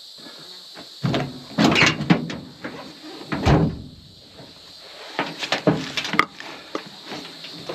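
Pickup truck tailgate being lowered with sharp metallic clunks, then a loaded backpack set down on it with a heavy thump and handled, knocking against the metal a few more times.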